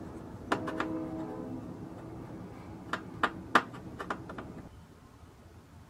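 A steel hammer head clinking against an aluminium pan as it is handled: a few sharp metallic taps about half a second in, the first with a short ring, then another quick cluster of taps about three seconds in.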